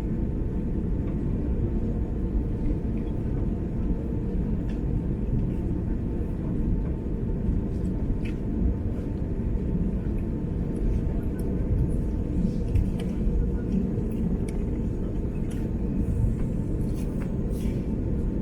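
Cabin noise inside an Airbus A330-300 on the ground after landing: a steady low rumble with a faint steady whine above it and scattered light clicks and rattles.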